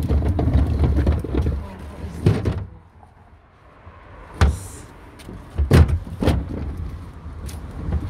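Wind rumbling on the microphone, then about three sharp knocks from a plastic wheelie bin lid being handled, near the middle.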